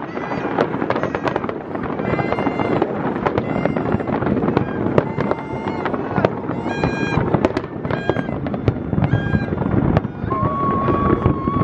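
A large fireworks display going off in rapid succession: a dense, continuous run of bangs and crackles. Short high pitched tones sound over the bangs throughout, and one long held tone comes in near the end.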